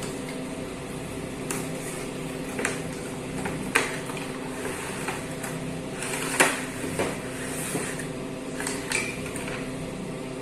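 A toy motorbike being unboxed: scattered sharp clicks and knocks of plastic and cardboard packaging being handled, with rustling as the plastic bike is pulled from its tray about 6 to 8 seconds in, over a steady background hum.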